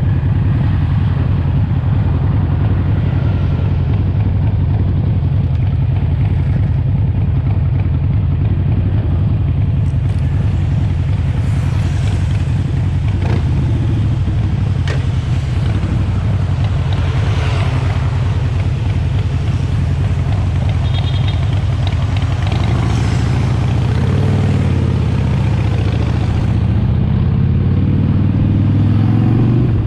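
Harley-Davidson Sportster Forty-Eight's air-cooled 1200 cc V-twin engine running with a steady, low pulsing beat, its pitch rising over the last few seconds as it revs up.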